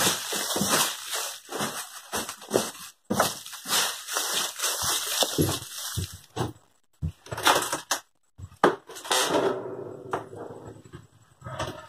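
Broom bristles sweeping dry leaves and dirt in quick scratchy strokes, then wooden 2x4 boards being pulled and knocked apart by hand.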